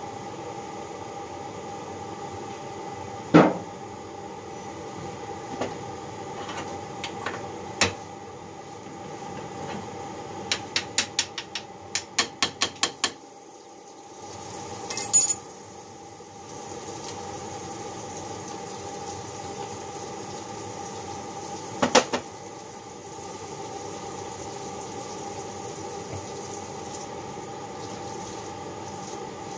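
Steel tools and engine parts clanking on a steel workbench as a connecting rod and wrench are handled. Sharp knocks come about three seconds in and again past the twenty-second mark, a quick run of about a dozen light clicks falls around the middle, and a bright metallic ring follows soon after, all over a steady background hum.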